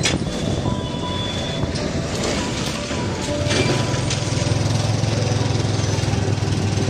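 Motorcycle engine running under way, with road and wind noise; the engine note gets louder and steadier about three and a half seconds in.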